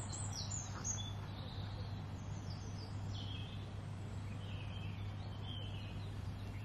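Songbirds chirping and calling, a scatter of short high notes, some falling in pitch, over a steady low hum.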